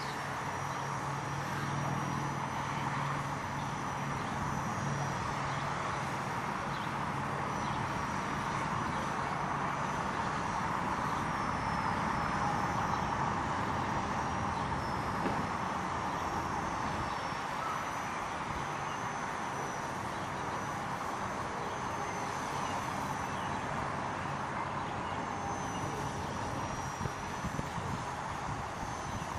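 Micro electric RC helicopter with a brushless motor in flight: a thin, high motor whine that drifts slightly up and down in pitch, over a steady rushing noise.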